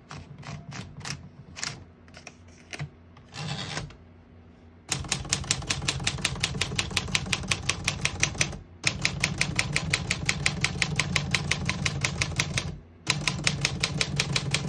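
1950 Smith-Corona Silent portable typewriter: a few scattered clicks and a short rustle, then rapid, even keystrokes from about five seconds in, with two brief pauses.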